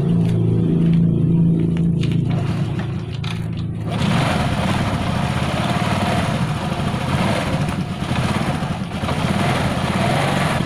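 Small 125 cc motorcycle engine running after a no-start, the fault traced to a worn-out spark plug. It runs steadily at first, then about four seconds in turns louder and rougher, with a quicker pulse, and keeps running that way.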